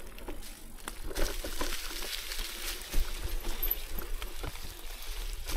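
Mountain bike rolling down a dirt trail: tyre noise over the ground with irregular clicks and knocks as the bike rattles over bumps.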